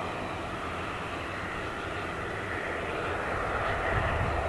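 Antonov An-140 turboprop airliner taxiing, its twin turboprop engines running with a steady drone that grows slightly louder near the end.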